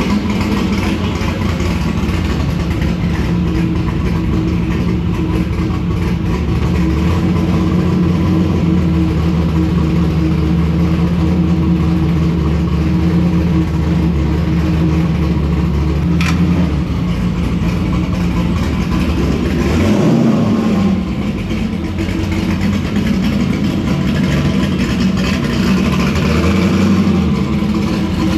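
Turbocharged Chevy Nova drag car's engine running at a steady idle, with a short click about sixteen seconds in and brief changes in the engine note around twenty seconds and again near the end.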